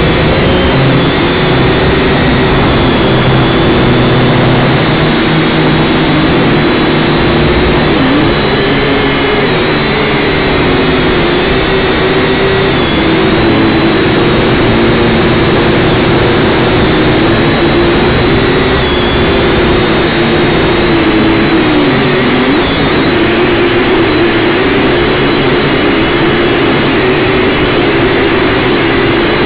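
Syma X5C quadcopter's small electric motors and propellers buzzing loudly and steadily, heard close up from the drone itself, with their pitch wavering up and down as the throttle changes.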